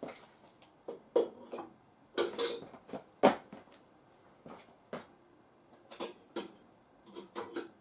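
Scattered clicks and knocks of small objects being handled on a workbench, the sharpest knock about three seconds in.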